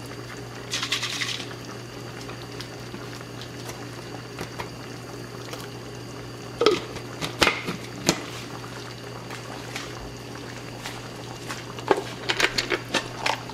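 Red chile sauce simmering and bubbling in a cast-iron skillet while chile water is poured in from a glass jar, with a few sharp clicks and taps. A low steady hum runs underneath.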